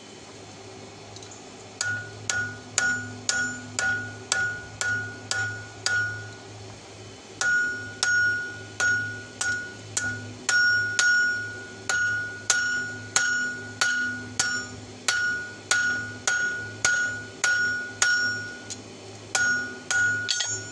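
Blacksmith's hand hammer striking the red-hot open end of an old steel wrench on an anvil, forging it into fork tines: sharp blows about two a second, each with a clear anvil ring. The blows start about two seconds in and come in runs, broken by two short pauses.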